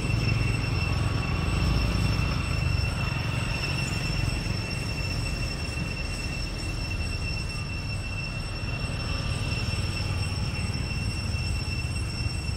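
Steady outdoor background: a continuous low rumble with a constant high, thin whine over it.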